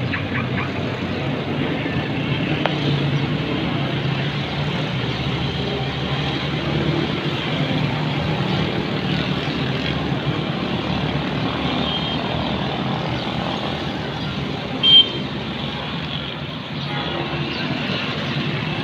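Steady low rumble of city background noise. A brief, sharp, high-pitched sound about fifteen seconds in is the loudest moment.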